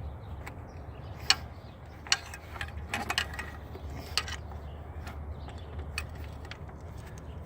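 Irregular metallic clicks and taps of hand tools working at a bolt on a power steering pump mounting, with a sharp knock about a second in and a quick cluster of clicks around three seconds in.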